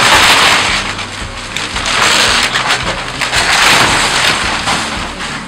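Excavator bucket tearing into a wood-frame house wall: loud crunching and splintering of wood and siding in three surges, over the steady low hum of the machine's engine.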